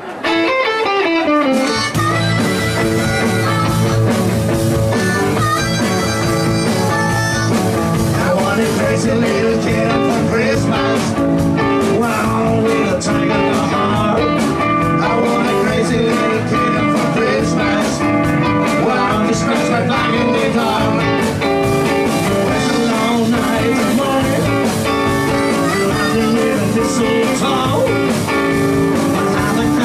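Live blues-rock band playing electric guitars, bass and drums, with a blues harmonica. It opens with a descending run, and the full band comes in about two seconds in.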